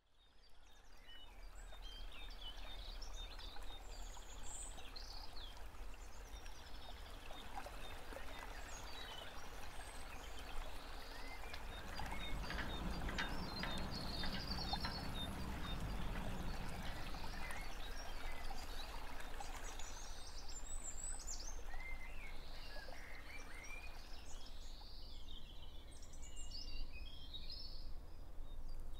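Birds singing and chirping, many short calls and trills, over a steady rushing background noise that fades in at the start and grows a little louder midway.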